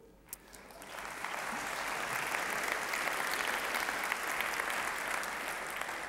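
A large audience applauding: the clapping swells in over the first second, holds steady, and begins to die away near the end.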